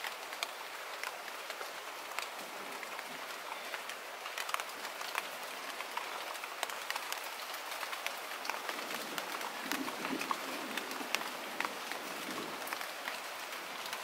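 Light rain falling on a pond surface and the plants around it: a steady hiss with many separate drops ticking.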